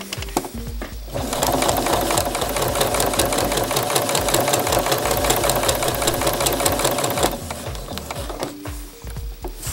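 Sewing machine stitching a fabric waistband, running fast and steady from about a second in, then dropping back to slower, quieter stitching about two seconds before the end.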